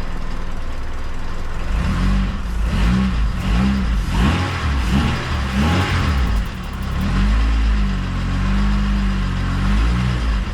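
Supercharged K24 engine in an Acura RSX, running just after its first start on a base map. It idles steadily, then from about two seconds in it is revved in a series of quick throttle blips, with a longer held rev near the end.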